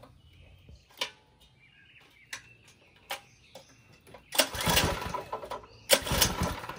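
Predator 212 single-cylinder four-stroke engine on a Coleman mini bike being pull-started: two hard yanks of the recoil cord near the end, each turning the engine over for about a second without it catching, after a few light clicks.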